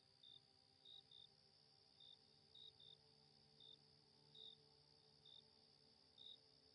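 Crickets chirping quietly in short single and double chirps about once a second, over a steady high hiss and a faint, soft ambient music pad.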